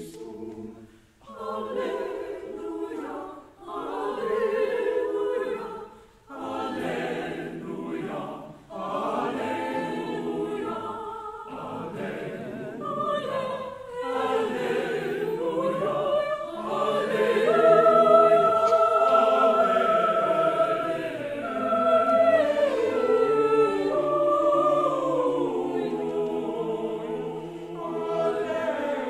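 Large mixed choir of men's and women's voices singing. Short phrases are separated by brief breaths over the first several seconds, then the choir moves into a longer passage of held notes that swells loudest around the middle.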